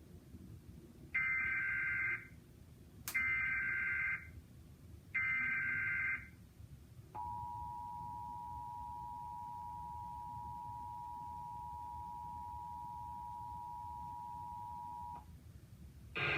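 Emergency Alert System test: three one-second bursts of the SAME digital header's warbling data tones, a second apart, then the steady two-tone EAS attention signal, held for about eight seconds before it cuts off.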